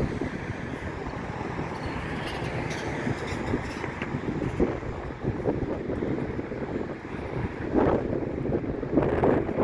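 Wind buffeting the microphone, an uneven low rumble that swells in gusts near the end.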